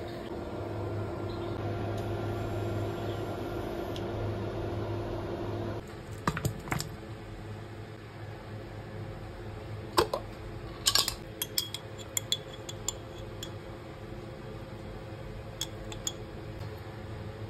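Scattered sharp clinks of a metal spoon against a glass jar and a stainless steel mixing bowl as sauce is scooped out, over a steady background hum. The clinks come in a few clusters, the busiest about eleven to thirteen seconds in, and the hum is louder for the first six seconds.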